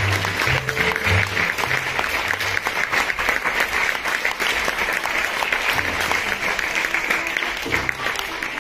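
Audience applauding steadily, with background music carrying a pulsing bass line underneath for the first couple of seconds and again near the end.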